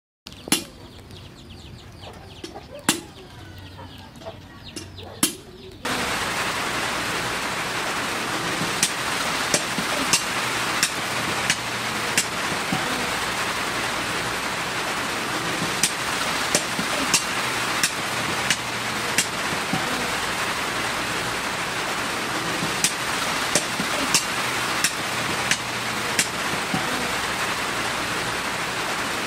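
Chickens clucking in the background, with a few sharp knocks, for the first several seconds. About six seconds in, a steady even hiss with scattered sharp clicks takes over.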